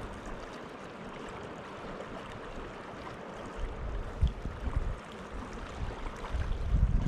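Rio Grande river water flowing, a steady rush. Low buffets of wind on the microphone come about four seconds in and again near the end.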